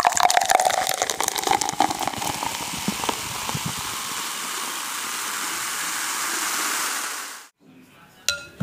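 Water-like hissing noise, crackly for the first few seconds and then even, which stops abruptly about seven and a half seconds in. Near the end a ceramic spoon clinks once against a glass bowl.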